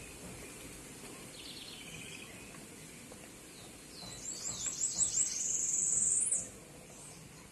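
Outdoor ambience with birds chirping. From about four seconds in, a loud, high-pitched run of quick squeaky notes turns into a held trill, then cuts off suddenly just after six seconds.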